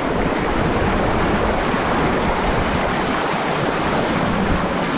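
River water rushing and churning over rocks right at the microphone, a loud, steady rush.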